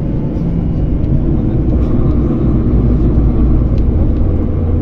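Ride noise inside a moving city public-transport vehicle: a steady low rumble from the motor and running gear.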